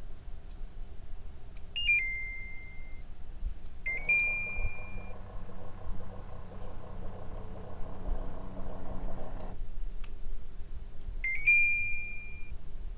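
Air conditioner beeping three times as it takes commands: each beep is a short chirp followed by a held tone of about a second, at about two, four and eleven seconds in. With the second beep the unit's fan starts and hums steadily, then cuts off suddenly about nine and a half seconds in; a low rumble runs underneath.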